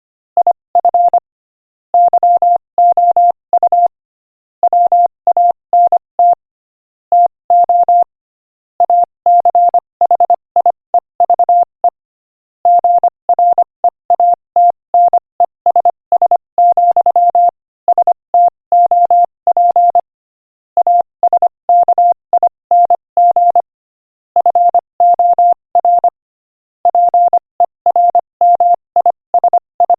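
Morse code sent at 25 words per minute as a single steady beep, keyed in quick dots and dashes grouped into letters and words with short pauses between. It starts about half a second in.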